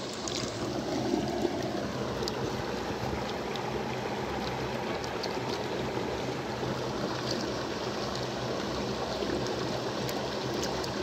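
Steady rush of flowing river water, with a few faint ticks now and then.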